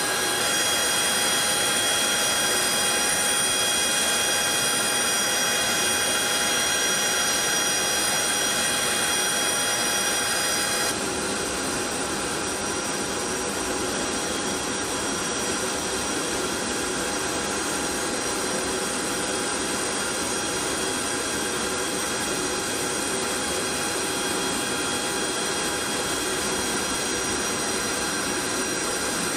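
Steady whine and rush of a large military cargo aircraft's jet turbines running on the ramp, with several high steady tones over a constant roar. The sound drops a little in level about eleven seconds in.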